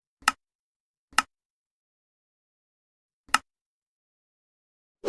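Three short, sharp clicks with silence between: two about a second apart, then a third about two seconds later. A louder hit starts at the very end.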